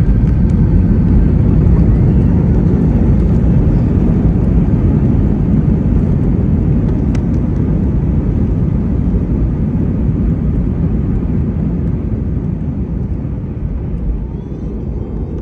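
Loud low rumble of an Airbus A321 heard inside the cabin during the landing rollout, slowly dying away as the jet slows on the runway.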